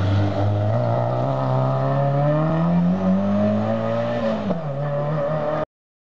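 Small hatchback rally car's engine accelerating hard out of a hairpin. Its pitch climbs steadily, then drops suddenly at a gear change about four and a half seconds in. The sound cuts off abruptly near the end.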